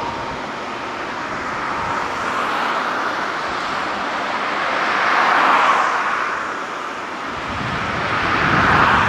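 Boeing 787-9 airliner's Rolls-Royce Trent 1000 turbofans at takeoff climb power, heard from behind as the jet climbs away: a steady jet roar that swells twice, about halfway through and again near the end.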